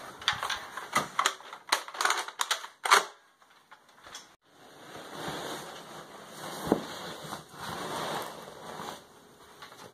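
Rapid sharp snaps and clicks, about a dozen in three seconds, typical of foam-dart blasters being fired and primed. After a short pause comes a steady noise with a single thump.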